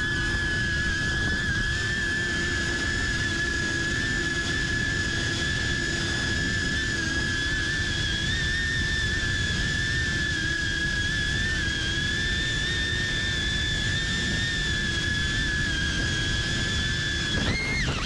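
FPV quadcopter's brushless motors and propellers whining at a steady high pitch over a low rush, heard from the GoPro on board. Just before the end the pitch starts swinging quickly up and down.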